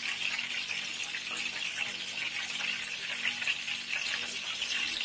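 Hot cooking oil sizzling in a frying pan, a steady crackling hiss, with a faint steady hum beneath.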